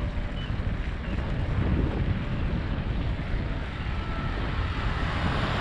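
Steady wind noise on the microphone of a moving bicycle, a deep, even hiss with no distinct tones.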